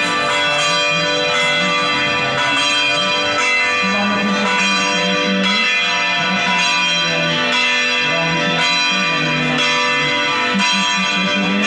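Church bells ringing in a continuous peal, many ringing tones struck again and again in quick succession, with the low notes changing as different bells sound.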